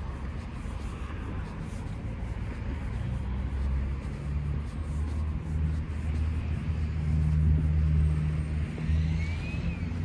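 A low engine drone with a steady pitch swells from about the middle, is loudest a couple of seconds before the end, and then eases off.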